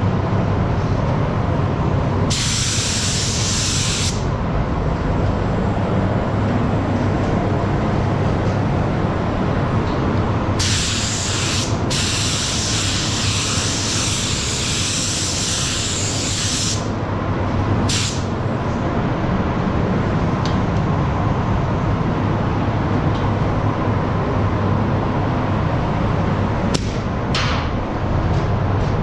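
Compressed-air paint spray gun hissing in bursts: a short one a couple of seconds in, a long one of about six seconds in the middle, then a few brief puffs. A steady low hum of paint-booth ventilation runs underneath.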